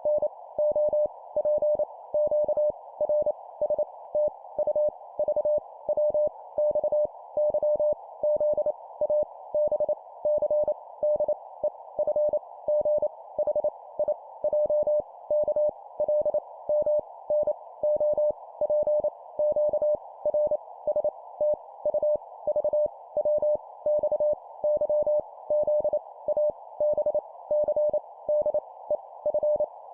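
Morse code (CW) tone keyed at 25 words per minute, sending letters as a steady mid-pitched beep broken into short and long elements. A constant narrow hiss runs underneath, filling the gaps between elements.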